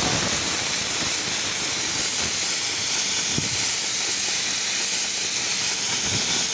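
Compressed-air spray gun hissing steadily as it sprays a thick coat of paint.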